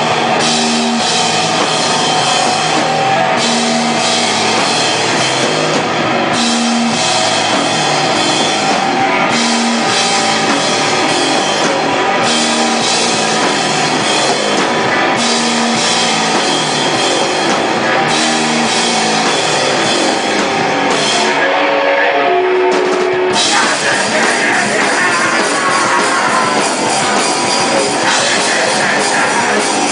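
Hardcore band playing live, loud, with drums and guitar. A riff repeats about every three seconds, then after about twenty seconds a short run of falling notes leads into a new, denser section.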